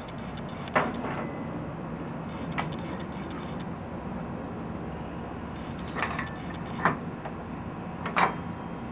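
About five sharp clinks and knocks of hands and parts against the metal clutch and pulleys of a 150cc go kart's CVT belt drive as the drive belt is worked off, over a steady low hum.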